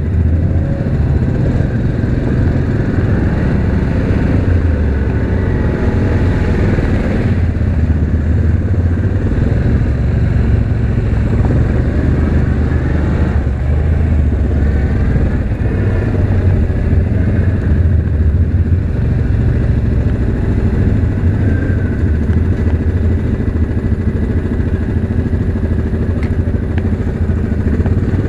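2019 Yamaha Grizzly 700 ATV's single-cylinder engine running steadily, its pitch rising and falling a few times with the throttle.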